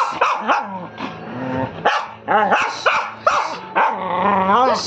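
Small white dog barking in a rapid string of short calls, about two a second, each bending up and down in pitch.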